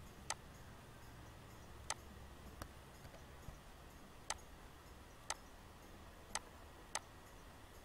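Six sharp clicks of a computer mouse and keyboard, spaced irregularly about a second apart, over a faint low hum.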